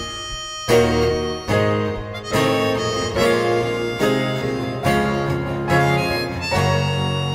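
Live acoustic band music: a harmonica plays the melody over piano, shamisen and acoustic guitar. After a brief softer moment at the start, the accompaniment strikes an accented chord about every 0.8 s.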